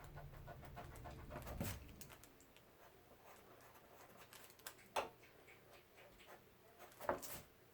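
A dog panting softly, with a few light taps in between.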